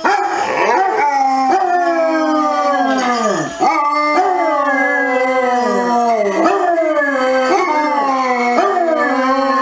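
Two basset hounds howling together: long, wavering calls that slide down in pitch and overlap one another, with a brief break about three and a half seconds in.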